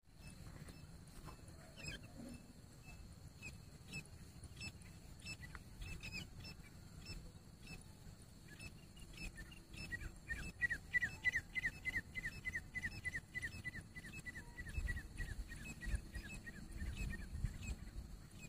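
Grey francolin calling: a few faint scattered notes at first, then about eight seconds in a fast run of short down-slurred whistled notes, about five a second, which fades away after about sixteen seconds.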